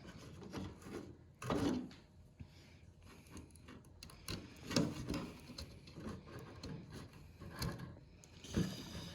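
Scattered light knocks and rubbing from handling a model airplane's hinged control surface as hinges are test-fitted into their cleaned-out slots, with a few louder knocks.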